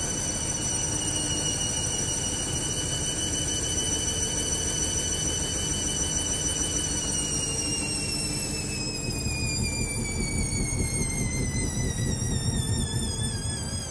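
Hoover Link washing machine on an interim spin burst with a very unbalanced load. The motor whine holds steady, then falls in pitch from about halfway as the drum slows. The low vibration of the drum grows heavier near the end.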